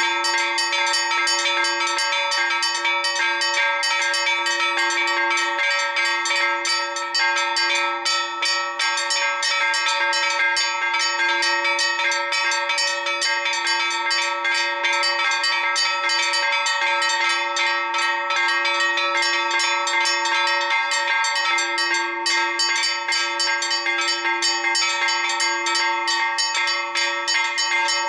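Four church bells rung together in a festive peal, struck in quick, unbroken succession so that their tones overlap into one continuous ringing.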